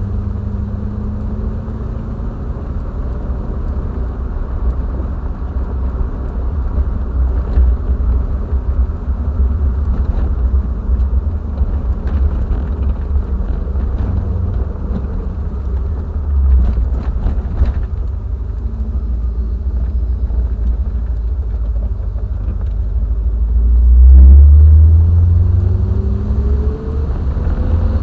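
Triumph TR7's 4.6-litre V8 running on the road with a steady low rumble, then climbing in pitch as it accelerates near the end.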